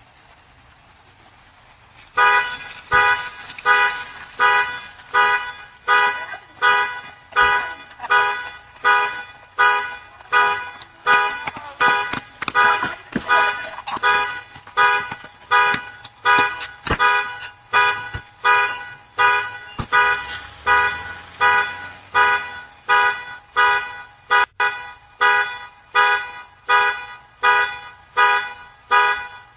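A car alarm blaring its horn in steady, evenly spaced honks, about three every two seconds, starting about two seconds in.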